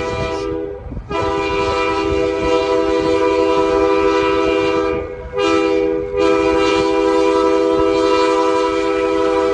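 A diesel locomotive's multi-chime air horn sounding in the long, long, short, long pattern used at a grade crossing. A blast breaks off about a second in, then a long blast of about four seconds, a short blast, and another long blast.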